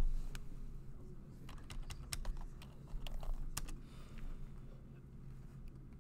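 Typing on a computer keyboard: irregular keystrokes, thickest about two seconds in, with a last, louder key press at about three and a half seconds, over a low steady hum.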